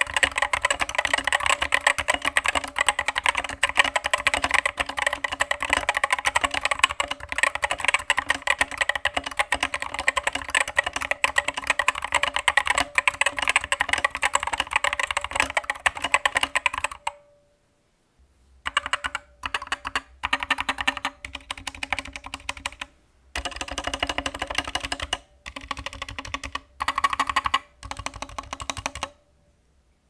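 Typing on a Skyloong SK64 60% keyboard with stock hot-swap optical switches, PBT XDA-profile keycaps and an ABS plastic case. The keystrokes sound hollow, with case and spring ping clearly heard. Steady continuous typing runs for about 17 seconds, then comes in several shorter bursts separated by brief pauses.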